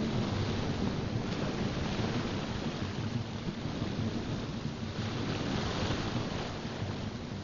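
Stormy-sea ambience of surging waves and wind, swelling and easing, layered over a soft background music track.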